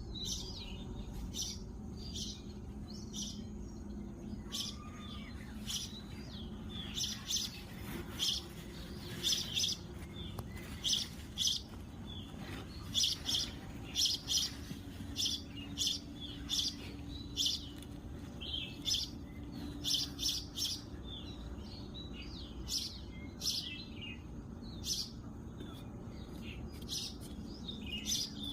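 Birds chirping in the morning: short, high chirps repeated about once a second, in clusters, throughout.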